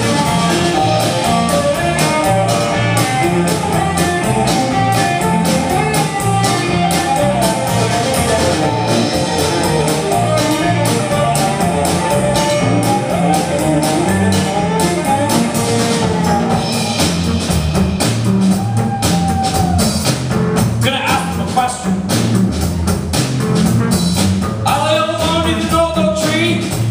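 Live rock band playing with drum kit, electric guitar and cello, with a voice singing over it in the later part.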